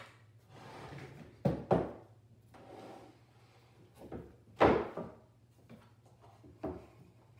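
Calibration blocks being handled on a press: a double knock about a second and a half in, a louder thunk near five seconds, and a few lighter taps and faint sliding between them.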